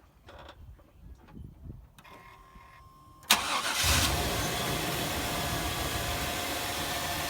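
Truck engine starting about three seconds in: it catches at once and settles into a steady idle. No knock stands out, with thick oil additive just added to mask a rod knock.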